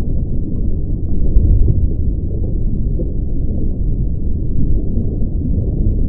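A steady, deep rumbling noise with nothing high in it, swelling slightly about a second and a half in.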